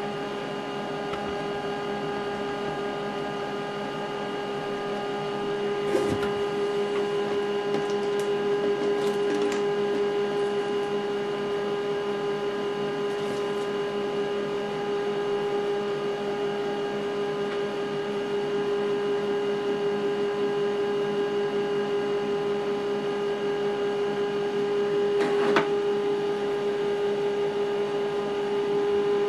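HP LaserJet MFP M140w laser printer running a steady motor whine while it initializes a newly installed toner cartridge. There is a short mechanical click about six seconds in and another near the end.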